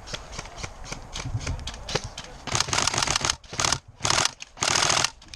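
Tokyo Marui SCAR-L airsoft electric gun firing four short full-auto bursts, starting about halfway in, each a rapid rattle of shots; before them, scattered sharp clicks.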